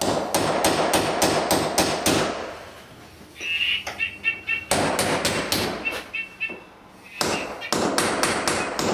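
Hammer striking a nail punch to set protruding nails into an MDF architrave. The taps come in three quick runs of about four or five a second, with short pauses between.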